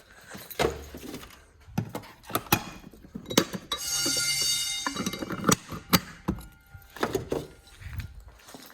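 Scattered thunks and knocks, with a brief steady electronic buzz lasting about a second and a half, about four seconds in.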